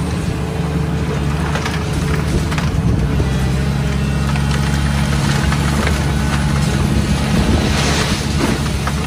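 Volvo EC700CL excavator's 16-litre diesel engine running steadily under load, with concrete rubble cracking and clattering down as the high-reach demolition attachment breaks up the floor slabs. A louder spell of crumbling debris comes about eight seconds in.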